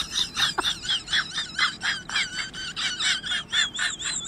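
Hen squawking in quick repeated high-pitched calls, about five a second, over a high wavering tone.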